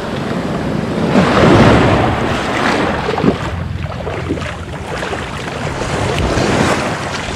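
Small sea waves breaking and washing through the shallows, with a swimmer splashing close by and wind buffeting the microphone. The wash swells loudest between one and two seconds in, with a few sharp splashes around three seconds.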